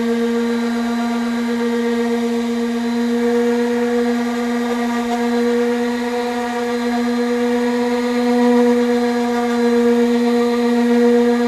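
Power sander running steadily with a constant whine, sanding down a vehicle body panel.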